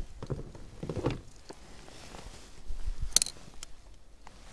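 Handling noise from rebaiting a float-fishing hook: soft rustles and small knocks, a few low thumps about a second in and a sharp click about three seconds in.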